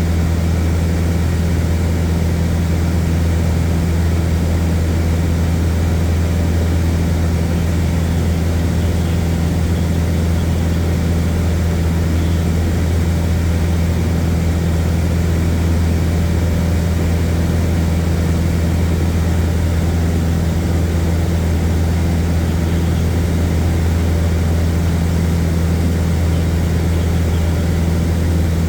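Airplane engine droning steadily in level flight, a constant low hum that holds the same pitch and loudness throughout.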